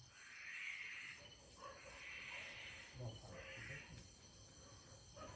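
An unidentified wild animal in the woods giving three raspy, wailing calls in a row, each under a second, which listeners liken to a cat at times and to a pig at others. Crickets or other insects trill steadily behind.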